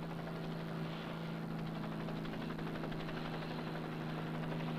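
Aircraft engine droning steadily at one even pitch, with a fast flutter in the sound. It cuts off suddenly a little after this.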